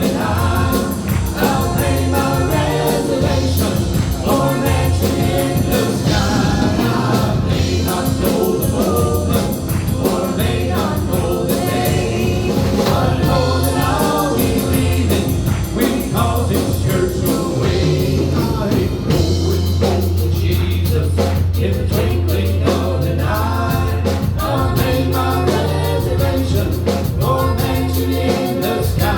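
Gospel song: voices singing over a band with a steady bass line and a beat.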